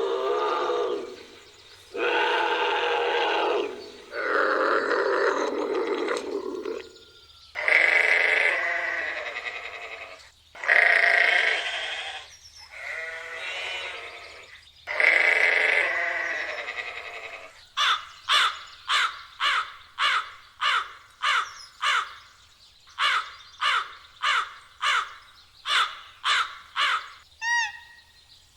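Wild animal calls: a string of long, harsh, bleat-like calls, then a quick run of short sharp calls about two a second, with high chirping notes at the very end.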